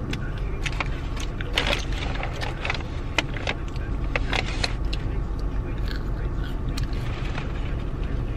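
Steady low rumble inside a car's cabin, with many short crinkles and rustles of McDonald's paper food packaging being handled.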